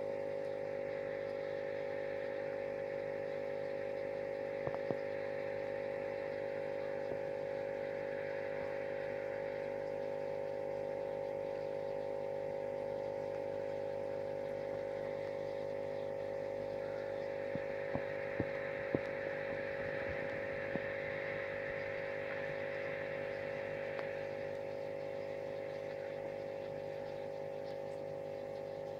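Steady electrical hum of an aquarium pump, with a hiss over it and a few faint clicks scattered through.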